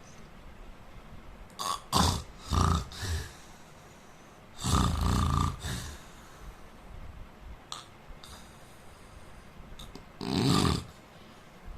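A man snoring in his sleep. A few short snorts come about two seconds in, a long rattling snore about five seconds in, and another snore near the end.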